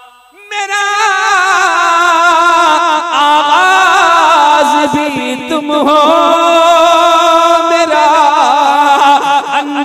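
A man's voice singing a naat unaccompanied through a microphone and PA: a long wordless melismatic passage of held, wavering notes that slide up and down, starting about half a second in after a brief breath.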